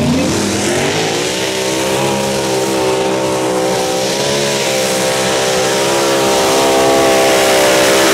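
Pulling tractor's engine revving up hard in the first second, then held loud at high revs through a pull, its pitch wavering slightly.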